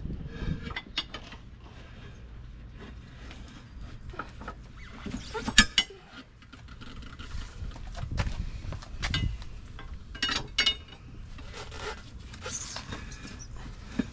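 Irregular knocks, clanks and scraping from dismounting a tire off a small 13-inch steel wheel on a manual tire changer, with one sharp loud knock about five and a half seconds in.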